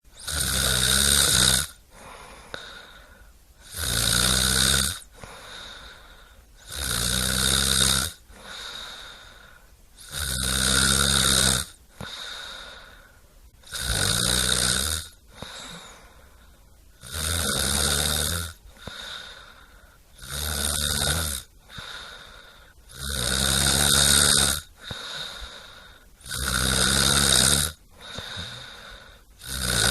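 A person snoring in a steady rhythm: about ten loud snores, each about a second and a half long and roughly three seconds apart, with quieter breaths out between them.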